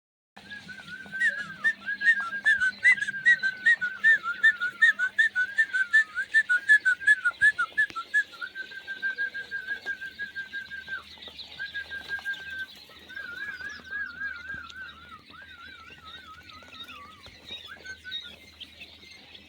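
A person whistling: quick, chirpy repeated notes, then long steady held notes, then wavering trills near the end. Underneath runs constant dense high chirping from many quail.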